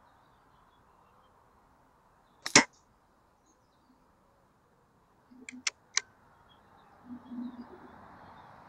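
A single air rifle shot, a short sharp crack firing a lead-free pellet, then about three seconds later three quick sharp clicks as the rifle's action is worked for the next shot.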